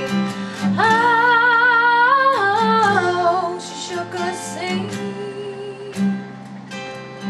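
Female voice singing a long held note with vibrato, stepping down in pitch, over a strummed acoustic guitar; the voice fades out about halfway through and the guitar plays on.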